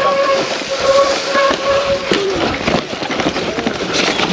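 Mountain bike descending a rough trail: tyres rumbling over gravel and the bike rattling with frequent knocks. The brakes squeal on and off in the first two seconds, then stop.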